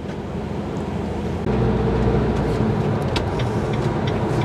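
Motorhome's diesel engine and road noise heard from inside the cab while driving, a steady low hum that grows louder about a second and a half in.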